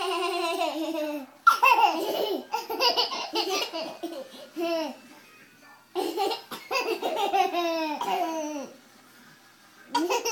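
Baby laughing in long giggling bouts, each laugh high-pitched and falling in pitch, with a short pause about 5 seconds in and a brief burst near the end.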